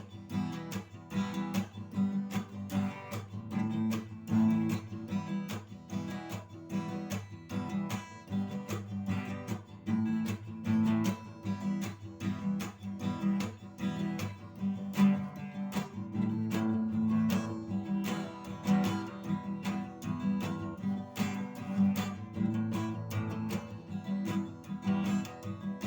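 Acoustic guitar strummed alone in the song's instrumental break, chords struck in a steady, even rhythm with no singing.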